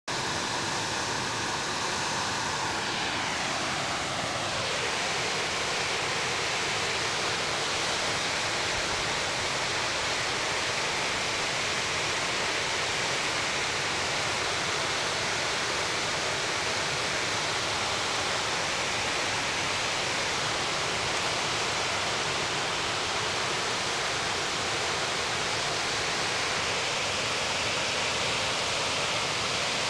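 Water pouring over a concrete dam spillway and churning white in the channel below: a steady, even rush.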